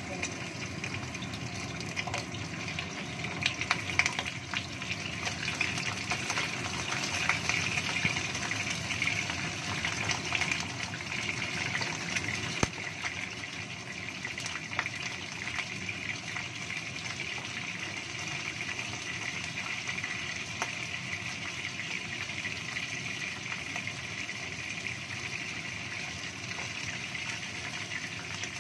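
Pieces of shark frying in hot oil in a wok: a steady sizzle with scattered pops and crackles, busiest in the first ten seconds or so as more pieces go into the oil.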